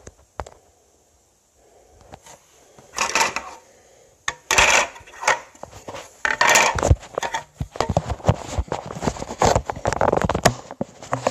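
Handling noise close to the microphone: small hard objects clattering, knocking and being set down, with rustling, in dense irregular bursts that start about three seconds in.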